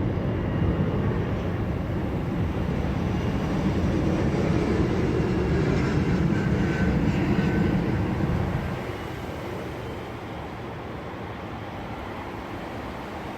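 Jet airliner flying over low, a loud rumble that builds and then fades away about eight or nine seconds in.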